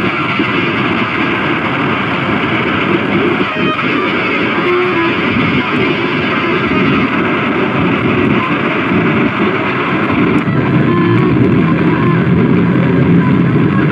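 Live harsh noise music played on electronics: a loud, dense wall of distorted noise with no breaks, growing a little louder after about ten seconds, with a few short steady tones cutting through near the end.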